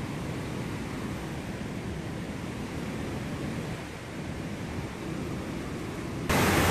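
Low rumbling wind noise on the microphone while the camera is moved about. About six seconds in it cuts suddenly to a much louder, even rushing of water, as of a waterfall.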